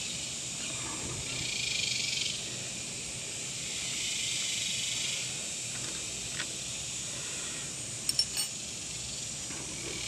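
A steady high insect drone that swells and eases, with a few small metallic clicks about six and eight seconds in as a hex key works loose the screw holding the ABS wheel speed sensor in the front steering knuckle.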